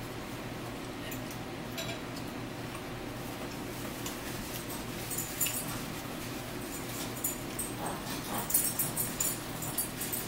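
Paper napkins crinkling and rustling as hands are wiped, with a few light clicks, over a steady low hum.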